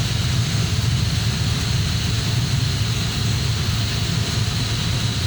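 Steady drone of a running chiller plant: a heavy, constant low hum with a faint high-pitched whine above it.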